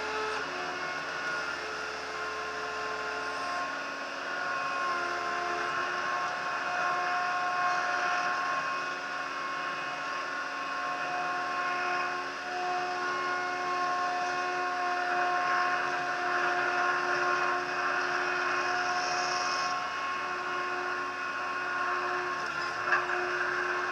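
TCM 706 compact loader's engine running, its pitch stepping up and down every few seconds as the revs change, with a single sharp knock near the end.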